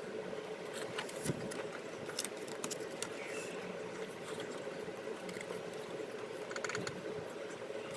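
Trading-card packs and cards being handled, giving scattered light clicks and crinkles of foil wrappers and card stock over a steady low hum.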